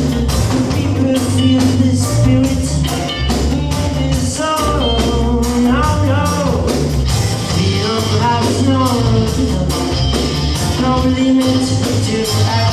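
Band music with a steady drum beat and a strong bass line, and a melody line rising and falling over it.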